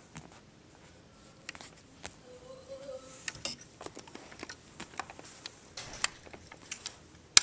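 Handling noise: scattered light clicks and taps of fingers on a plastic and diecast scale model car, with one sharper click near the end.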